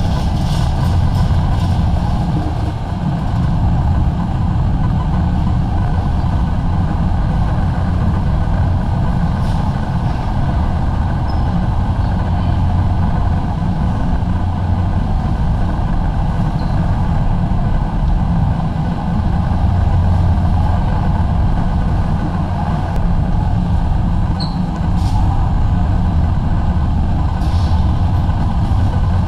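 Steady, loud drone of a warehouse store's ventilation and air-handling fans, low and even with a thin steady tone over it, and a few faint clicks.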